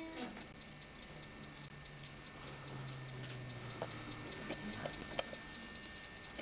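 Faint, steady, regular ticking, with a few louder isolated clicks scattered through it.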